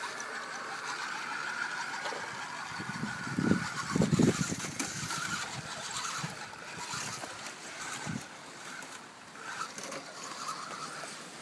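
Radio-controlled rock crawler's electric drive motor and gears whining as the truck creeps over boards and rocks, steady at first and then on and off with the throttle. A few low bumps come about three to four seconds in.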